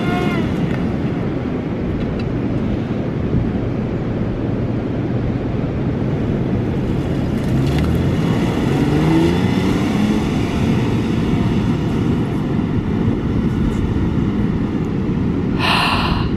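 Pickup truck engine revving as it drives off through soft beach sand, its pitch rising and falling in the middle, over a dense low rumble. A short burst of noise comes near the end.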